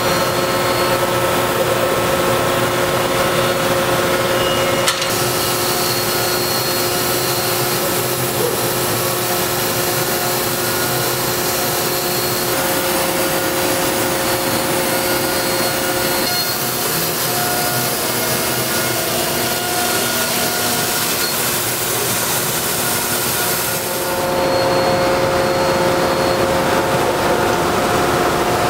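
KOMO CNC router cutting UHMW plastic sheet: a steady spindle whine with the hiss of cutting and dust extraction. Near the end the high hiss drops away, leaving a steady machine hum.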